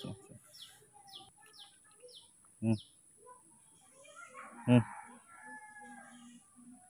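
A small bird chirping, a short falling chirp repeated about twice a second for the first three seconds, then a rooster crowing in the second half. Two short, louder sounds come about three and five seconds in, over a steady high hiss.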